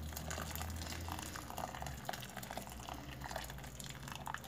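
Hot water poured in a steady stream into a pot already holding broth, rice and vegetables, splashing and bubbling in the liquid.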